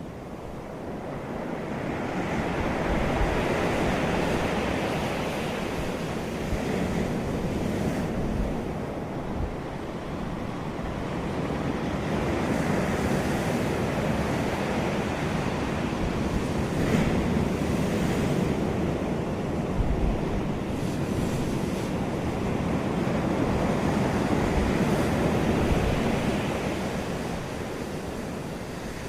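Ocean surf: a continuous rushing wash that swells and ebbs slowly, rising over the first few seconds and cresting again around the middle and near the end.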